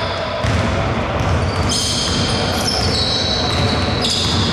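Basketball game sounds in a large echoing gym: the ball bouncing and players' shoes squeaking on the court floor.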